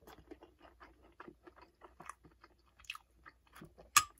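Quiet, close-miked chewing of a mouthful of tender slow-roasted ham: many small soft mouth clicks, with one sharp click near the end.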